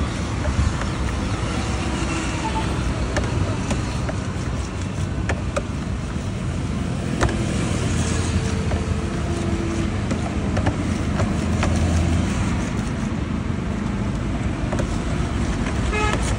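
Steady road traffic noise from a busy street, with occasional light clicks from a steel ladle stirring batter in a plastic tub.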